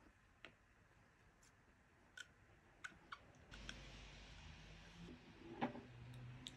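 Faint scattered clicks and taps of a silicone spatula scraping yoghurt from a plastic tub into a glass bowl, then stirring it into beaten eggs, with one sharper tap about five and a half seconds in.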